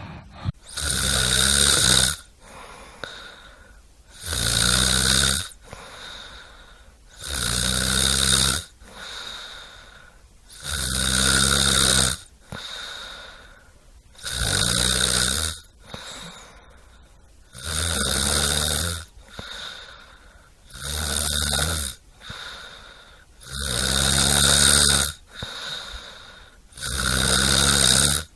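A person snoring in a steady rhythm: about nine loud, buzzing snores, each lasting a second or more and coming every three seconds or so, with fainter breaths between them.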